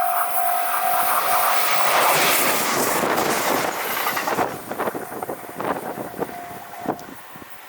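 Japanese level-crossing bell ringing its repeated electronic 'kan-kan' tone, drowned out about a second and a half in as a JR Shikoku Yosan Line train rushes past close by. The passing is loudest about two to three seconds in, then fades into wheels clacking over the rail joints, with the crossing bell faintly audible again near the end.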